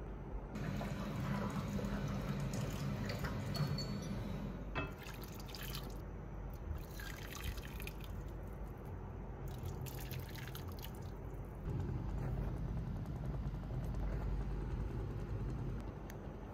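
Water poured from a drinking glass into a pan, splashing and trickling, then dripping in short spells.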